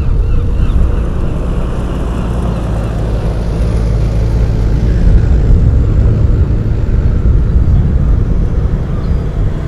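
4x4 engine running steadily as the vehicle drives slowly over the loose sand of the track.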